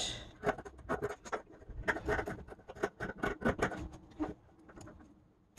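Scissors snipping through a terrycloth washcloth: a quick, uneven run of crisp snips, a few a second, getting fainter near the end.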